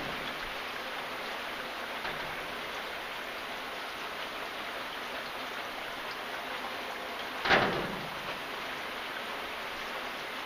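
Steady rain falling, an even hiss of many drops. About seven and a half seconds in, one louder, brief hit stands out, like a heavy drop or splash on a surface.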